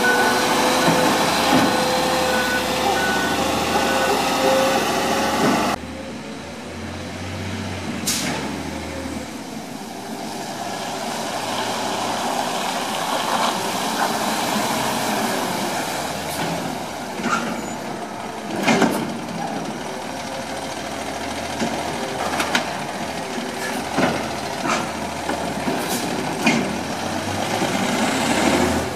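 CNG-powered Peterbilt Labrie Automizer side-loader garbage truck running close by with a steady beeping alarm. It then runs at a distance with its engine steady, broken by several sharp bangs and hisses from its working.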